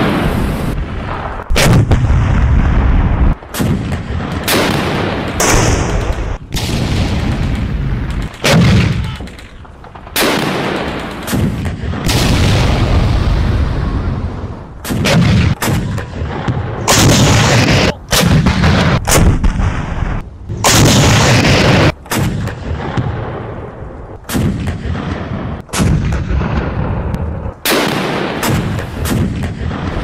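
German 88 mm Flak gun firing again and again, about twenty heavy shots at irregular intervals of one to two seconds, each a sharp blast trailing off into a long low reverberation.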